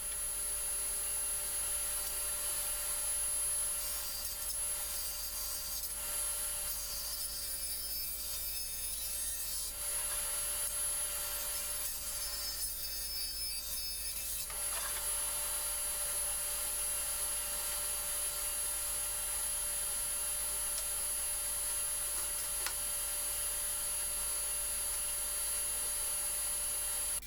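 Table saw running while a board's edge is fed past a blade raised only about half a millimetre, taking a light jointing cut. The steady saw whine and cutting noise shift a couple of times as the feed goes on, then cut off suddenly.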